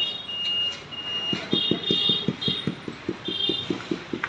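Rapid, even tapping on a ceramic floor tile with the end of a tool handle, about five knocks a second, starting about a second and a half in. The tile is being bedded down into its mortar.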